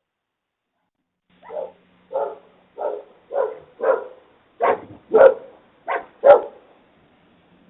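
A dog barking about nine times in a quick run, roughly a bark every half second, the barks getting louder toward the end.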